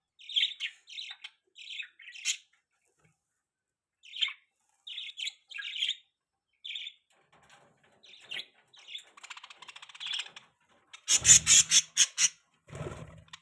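Budgerigars chirping: short sharp chirps in quick runs with pauses between, a scratchy warble a little past the middle, then loud, rapid chattering in the last couple of seconds.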